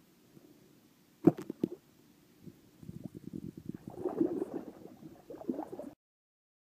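Bowfishing shot at a gar: a sharp snap of the bow releasing and the arrow striking the water about a second in, followed by a few seconds of splashing as the arrowed fish thrashes. The sound cuts off suddenly near the end.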